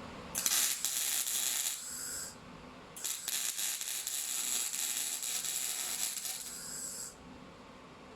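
MIG welding arc from a Torros MIG 200 Pulse semi-automatic welder, crackling and sizzling in two runs: a short one of about two seconds, then a longer one of about four seconds. On this weld the wire burns a little way through the workpiece.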